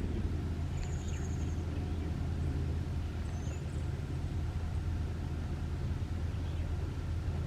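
A steady low engine hum with an even drone that stays constant in pitch and level.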